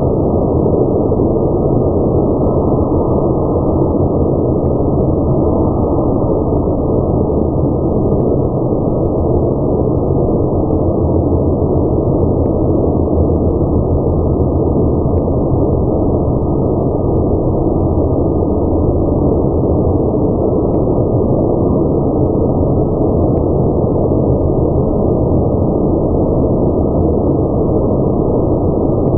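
Car wash machinery running: a steady, loud rushing noise that does not change.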